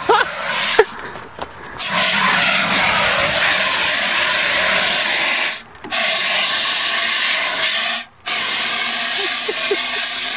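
Handheld fire extinguisher discharging: a loud, steady hiss that starts about two seconds in and cuts off sharply twice for a moment as the valve is released and squeezed again.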